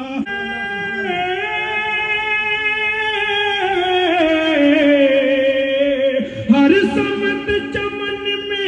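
A man's voice in a long, unaccompanied melodic recitation amplified over a PA system. He holds drawn-out, ornamented notes that slowly fall in pitch, then pauses briefly about six seconds in before starting a new rising phrase.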